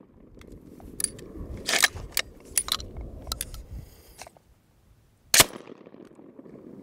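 Cobray Terminator single-shot, open-bolt 12-gauge shotgun: a scatter of metallic clicks and clacks as the gun is handled, then a single loud shot about five seconds in, with a brief echo.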